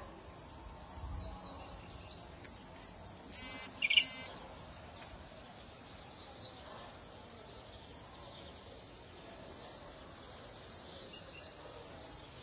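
Birds calling, with short high descending chirps about a second in and again around six seconds, over a faint steady background. A loud, harsh two-part buzzing sound a little past three seconds in is the loudest thing.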